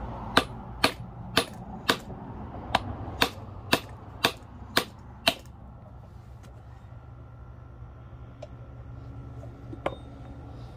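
Hammer striking a socket held against a U-joint bearing cap in a drive shaft yoke, driving the cap out: ten sharp metallic strikes about two a second, which then stop.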